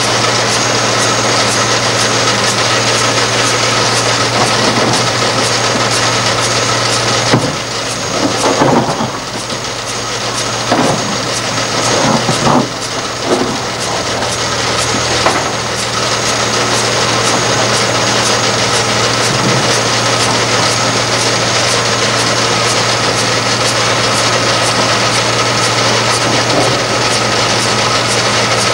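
Liebherr R962 Litronic hydraulic excavator running steadily close by. Midway through, the engine sound drops back for several seconds, with a few knocks and scrapes as the toothed bucket digs into the soil.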